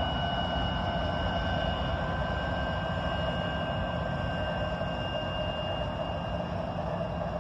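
Norfolk Southern freight train's diesel locomotives running with a steady low rumble as the train moves slowly toward a stop, with a thin, steady high-pitched whine over it.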